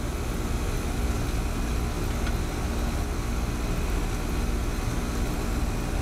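Steady low rumble with a faint hum and hiss of machinery running in the background, with one faint click about two seconds in.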